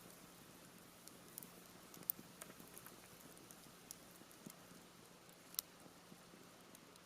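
Campfire of half-dried cedar wood crackling softly, with scattered sharp pops and snaps over a faint steady hiss; the two loudest snaps come about two seconds in and about five and a half seconds in. The popping comes from moisture still left in the half-seasoned wood.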